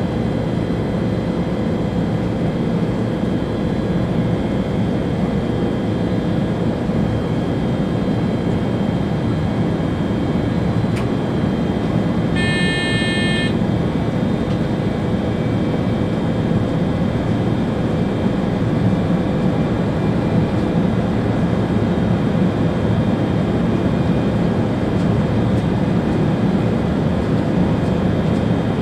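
ÖBB Railjet high-speed train running at speed, heard from the driver's cab: a steady rumble of wheels on rail with faint steady tones. About halfway through, a short beep lasts about a second.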